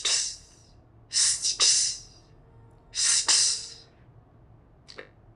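A man's voice demonstrating the English consonant cluster "sts" as one breath: three long hissed "s" sounds, each broken by a tongue-flick "t", with a short tick near the end.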